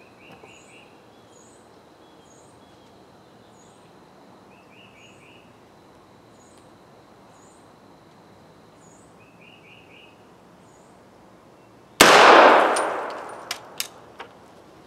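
A single shot from a 300 Blackout firearm about twelve seconds in, loud and sharp, its sound fading over about a second, followed by a few faint clicks.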